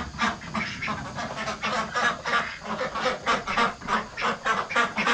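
A group of ducks quacking, short quacks coming several a second without a break.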